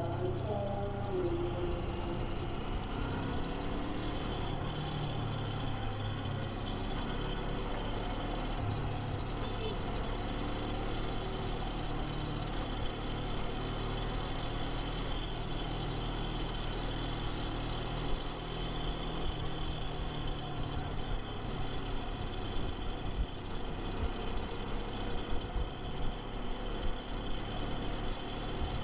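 Kawasaki Versys 250 parallel-twin motorcycle engine running steadily while riding, with road and wind noise.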